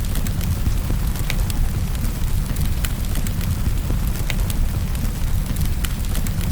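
Wood fire in a fireplace burning with rain: a steady low rumble and hiss, broken by scattered sharp crackles and pops from the burning wood.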